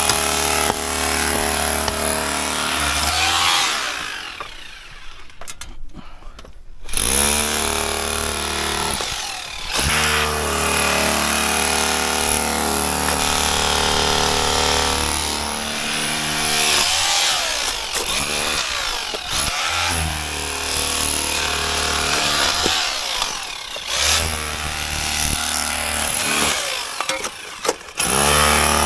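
A power tool's motor running in several long bursts, stopping briefly a few times and spinning back up after each stop.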